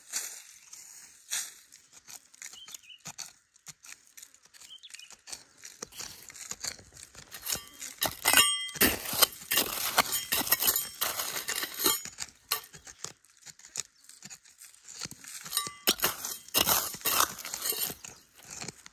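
Small metal trowel digging and scraping through dry, gravelly soil, with loose grit spraying and stones clicking against the blade. The scraping is busiest in the middle and again near the end.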